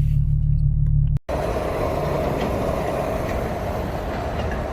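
A car engine droning steadily at a low pitch, cut off abruptly just over a second in, then replaced by a steady, even rushing noise of a vehicle.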